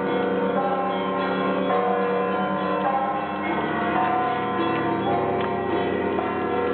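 Orthodox monastery church bells ringing together: many bells of different pitches struck in an ongoing peal, new strikes every second or so over tones that ring on without a break.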